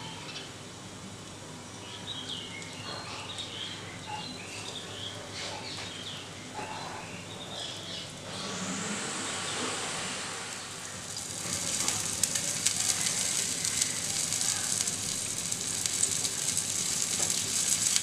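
Coated Bombay duck fish pieces shallow-frying in a little oil in a nonstick pan. At first there is only a light, scattered crackle. About halfway through, the sizzle rises sharply as more pieces go into the hot oil, and it stays a loud, dense crackling sizzle.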